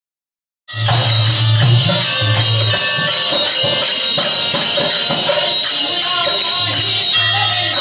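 Devotional bhajan music starting abruptly just under a second in: jingling hand percussion keeping a quick steady beat over a steady high ringing tone and a low drone, with voices taking up a sung melody near the end.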